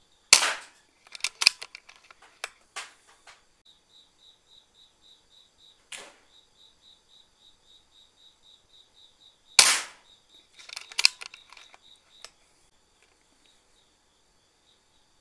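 Two shots from a PCP air rifle, about nine seconds apart, each a sharp crack followed by a short scatter of smaller clicks and knocks.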